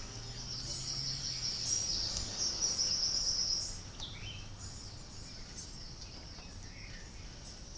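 Insects chirping in a high, pulsing trill that drops away about three and a half seconds in, with a few short bird calls.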